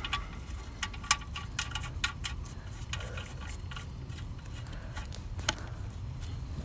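Light metallic clicking from under the car as the 13 mm oil pan drain plug is turned back in: a run of small ticks, a few a second, in the first half, then a single click later. A low, steady background rumble runs underneath.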